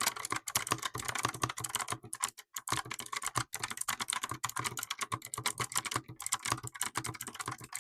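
Typing on a Yunzii QL108 full-size mechanical keyboard with pre-lubed switches and round electroplated keycaps: a quick, uneven run of key clicks, several a second.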